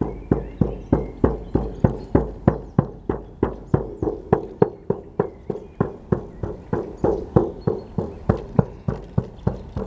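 Shaman's frame drum (buben) beaten in a steady, even rhythm of about three strikes a second, each beat ringing briefly.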